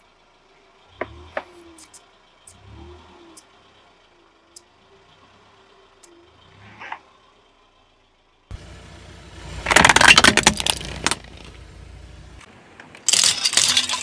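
Car tyre rolling over plastic objects on asphalt and crushing them. At first there are only a few low thumps and sharp clicks, then after about eight and a half seconds comes a loud, dense crackling and snapping of plastic breaking under the tyre, with a second run of loud cracks near the end.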